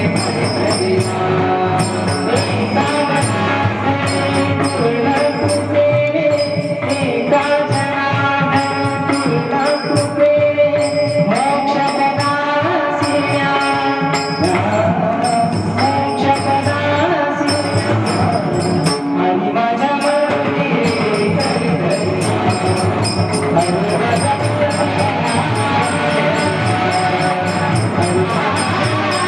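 Marathi devotional bhajan music: a held, gliding melody over a steady beat of jingling hand percussion.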